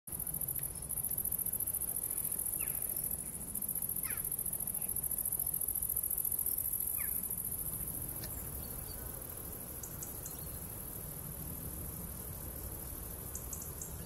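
Crickets trilling in one continuous high-pitched drone, with three short falling bird calls in the first half and a low rumble underneath.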